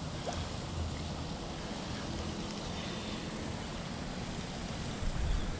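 Steady wind noise on the microphone: an even hiss with a low rumble underneath, without distinct splashes or clicks.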